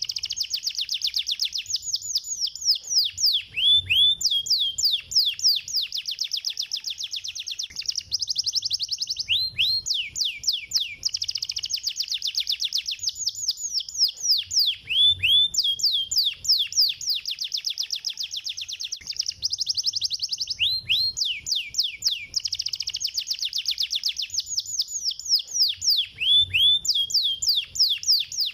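Domestic canary singing fast, tightly packed trills of rapid high downward-sweeping notes in long phrases separated by short pauses, the phrases recurring every five or six seconds.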